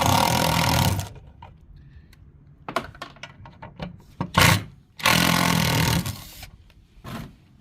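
A power tool run in short bursts: two buzzing runs of about a second and a half each, with a brief burst between them and light clicks and taps of metal work in the pauses.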